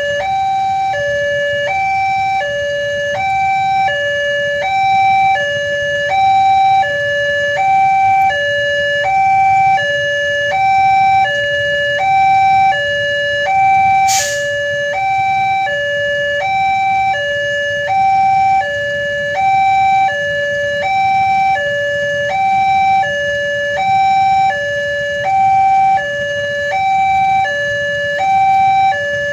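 Railway level-crossing warning alarm sounding a steady electronic two-tone signal, high and low tones alternating about once a second: the crossing is closing for an approaching train. A single sharp click about halfway through.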